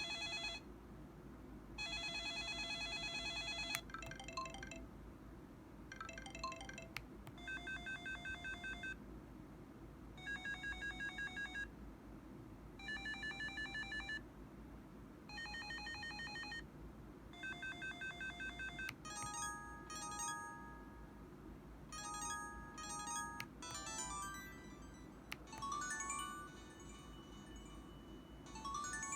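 Samsung Anycall SPH-W5200 mobile phone playing its built-in ringtones and alert sounds one after another through its speaker: short electronic trills and beep patterns a second or two long with brief pauses between, then short melodic jingles over the last ten seconds. A steady low hum sits underneath.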